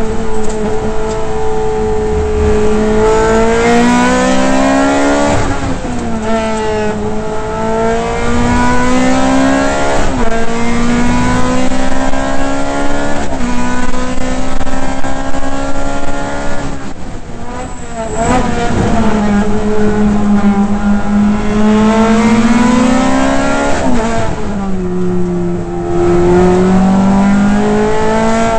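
Ferrari F430 GT race car's V8 engine heard from inside the cockpit at racing speed, climbing in pitch through upshifts, then falling away with downshift blips under braking for corners several times before pulling hard again.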